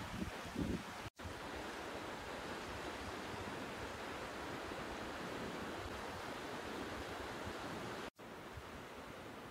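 Steady hiss of steam escaping from geothermal vents (fumaroles) around a steaming hot pool, with a little wind buffeting the microphone in the first second. The sound drops out completely twice for an instant, about a second in and near the end.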